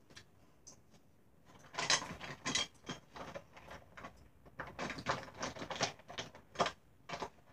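Handling noise of small plastic items, probably makeup containers and tools, being picked up, opened and set down: an irregular run of clicks, taps and rustles that starts about two seconds in.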